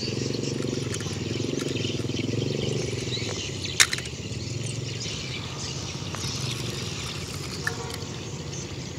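Outdoor background noise with a low wavering hum that eases off after about three seconds, a steady high hiss, and one sharp click about four seconds in.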